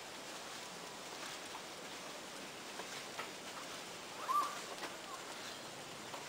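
Quiet background hiss with a few soft clicks, and a short bird chirp about four seconds in.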